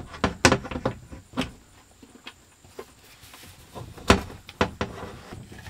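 Scattered clicks and knocks of a plastic solar charge controller being handled and fitted against a thin wooden wall panel, with sharper taps about half a second, a second and a half, and four seconds in.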